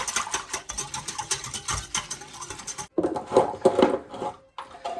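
A wire whisk stirring chicken bouillon into water, its tines clicking rapidly against the container, stopping abruptly about three seconds in. A louder, brief rattle follows.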